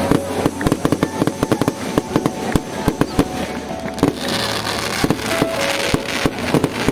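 Fireworks going off: a rapid, dense volley of sharp bangs for about three seconds, then sparser bangs mixed with a crackling hiss.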